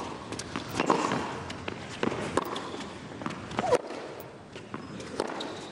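Tennis rally on a hard court: racquet strikes on the ball every second or so, with a few shoe squeaks as the players move.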